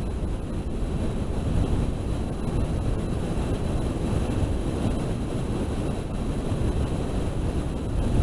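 Wind rushing over the onboard camera microphone of an FPV model aircraft in flight: a steady low rumble, with faint steady high tones above it.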